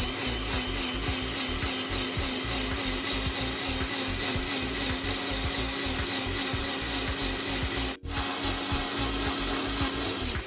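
Blender motor running steadily at full speed, blending fruit and vegetables, with a brief break about eight seconds in.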